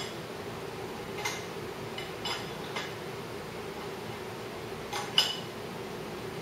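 Metal hand tools and engine parts clinking against each other: about six light clinks, each with a short metallic ring, the loudest about five seconds in, over a steady low hum.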